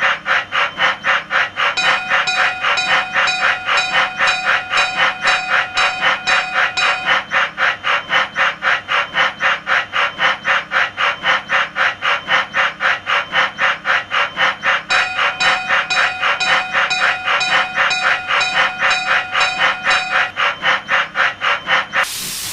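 Cartoon steam-train sound effects: a fast, even beat of about three strokes a second. A steady, whistle-like tone joins in twice, for about five seconds each time, and a short burst of steam hiss comes in right at the end.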